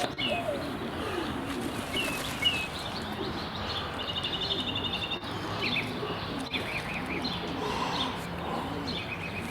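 Pigeons in a loft cooing over and over in low, repeated rising-and-falling calls, with small birds chirping higher and a short trill about four seconds in.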